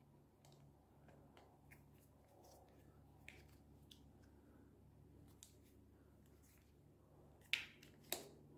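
Near silence broken by faint scattered clicks of a folding Allen key turning the clamp bolt of a bicycle brake lever, with two sharper clicks near the end.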